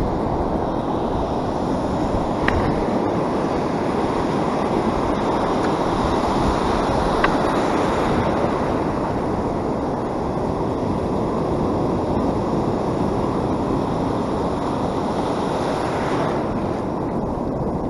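Steady rush of ocean surf foaming and washing around a wader standing in the shallows, with a couple of faint clicks early on.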